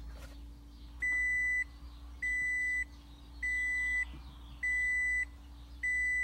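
A 2005 Toyota Prius's dashboard warning chime beeping five times, each beep just over half a second long and about a second apart, over a faint steady hum. The beeping goes with the warning lights coming on at the first power-up after the battery rebuild, when the hybrid system fails to start.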